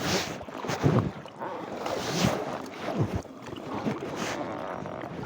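Kayak paddle strokes through river water, a surge of splashing and swishing roughly once a second, with wind buffeting the microphone.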